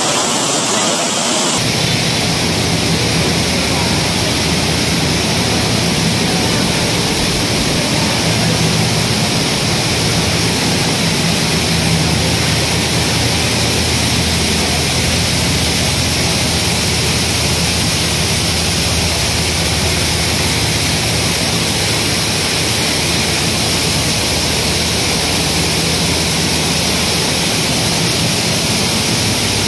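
Grain-cleaning plant machinery running: a steady, loud mechanical noise with a low hum underneath.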